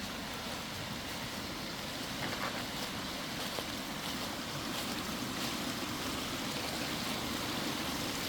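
Rain-swollen creek and runoff water rushing, a steady rush.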